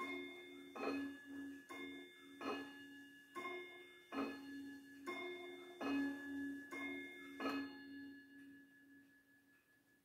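Antique mantel clock chiming on its rod gongs: a run of ringing notes of differing pitch struck a little under one a second, the last strike about seven and a half seconds in, then the tones dying away.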